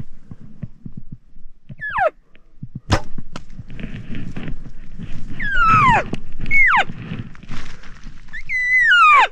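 Bull elk bugling: several high whistling calls that each slide down in pitch, one after another and partly overlapping, the last and loudest held a moment before it falls. A single sharp knock sounds about three seconds in.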